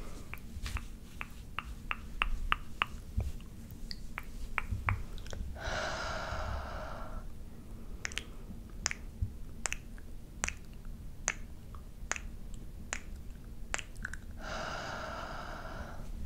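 Close-up ASMR mouth sounds: a run of wet licking clicks and smacks right against the microphone, with two longer breathy sounds of about a second and a half each, one about six seconds in and one near the end.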